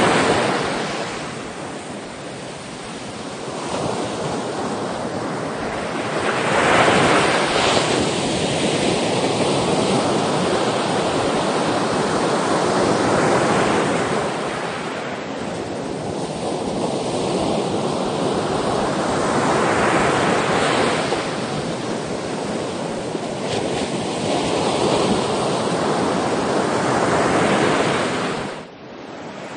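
Sea surf: waves washing in, swelling and ebbing about every six or seven seconds. The sound drops off abruptly near the end.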